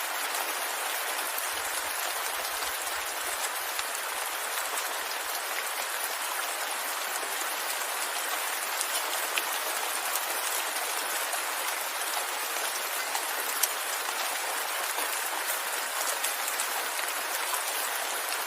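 Steady rain, an even hiss of many drops with distinct individual drops ticking through it, a couple of them louder near the middle.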